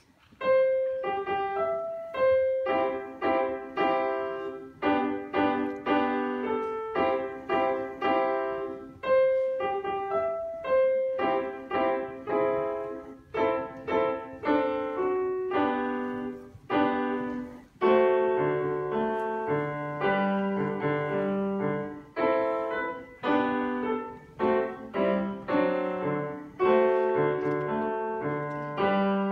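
Steinway grand piano played solo: a classical sonatina, starting about half a second in with quick, clearly separated notes, and lower bass notes coming in more strongly in the second half.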